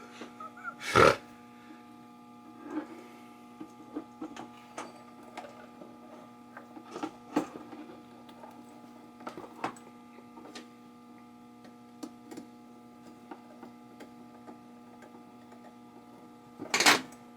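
Small scattered clicks and taps of hand tools and wire being worked into an electrical box, over a steady hum. A sharp knock comes about a second in, and a louder clatter near the end.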